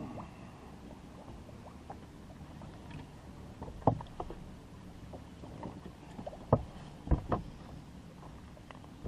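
A few sharp knocks and thumps on a fishing boat as a freshly caught largemouth bass is handled and unhooked: one near the middle, then three in quick succession a little later, over a steady low rumble.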